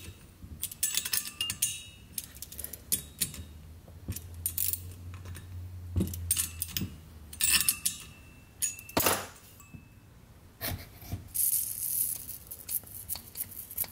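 Metal clinks and taps of a tool and bolts against a homemade two-stroke engine's heat-sink cylinder head as the head and spark plug are fitted. Near the end comes a short hiss of compressed air leaking around the spark plug as the piston is turned over by hand.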